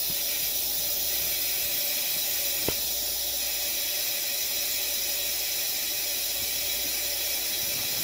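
Cold water running steadily from a bathroom sink tap and draining through the plastic trap, an even hiss, with one small click about three seconds in.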